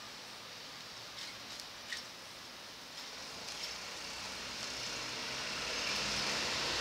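Outdoor street ambience with a few faint clicks, then a broad rushing noise that grows steadily louder through the second half.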